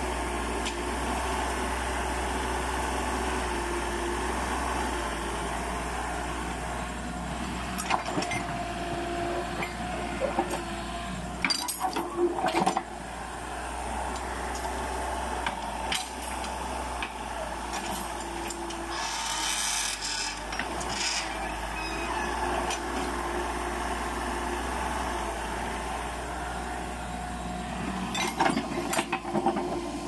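Mini excavator's diesel engine running steadily under hydraulic load, its note shifting as the arm and bucket work. Sharp clanks and scrapes of the steel bucket digging into soil come in clusters, midway and near the end.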